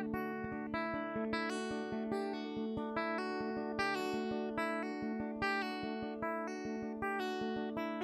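Acoustic guitar strummed in a steady pattern, chords ringing between the strokes: the instrumental intro of a song, before the vocals come in.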